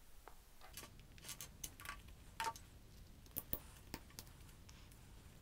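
Faint, scattered clicks and taps of small 3D-printed plastic parts and a glue tube being handled on a tabletop.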